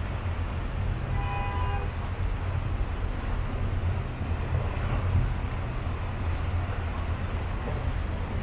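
Steady low rumble of a river cruise boat's engine, heard from on board. A short, pitched toot sounds about a second in.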